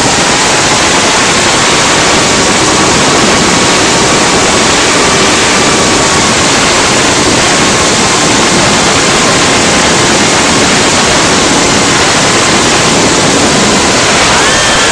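FPV drone's motors and propellers heard through its onboard RunCam Hybrid camera: a loud, steady rush of prop wash and wind with a faint whine that drifts in pitch, then rises and falls near the end.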